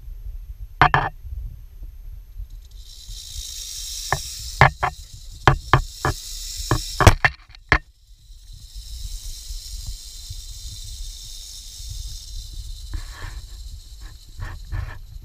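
Uracoan rattlesnake (Crotalus durissus vegrandis) rattling its tail in a steady high buzz. The buzz starts about three seconds in, breaks off briefly near eight seconds and then resumes. A run of sharp knocks comes through it, most of them between four and eight seconds in.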